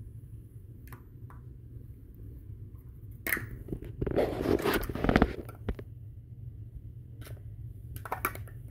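Large plastic toy building blocks being handled: scattered clicks and clacks as pieces knock together, with a louder stretch of rustling and clattering about four to five seconds in. A low steady hum lies underneath.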